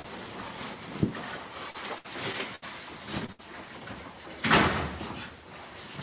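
Bumps and rustling of a person scrambling across an air mattress, with a low knock about a second in and a loud, heavy thump about four and a half seconds in.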